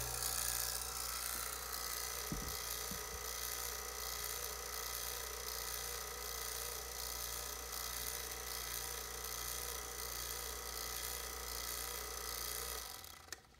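HVAC vacuum pump running steadily with a steady hum and a high whine while it pulls a deep vacuum on a jar that still holds a little ice. The pump sound cuts off near the end, followed by a short click.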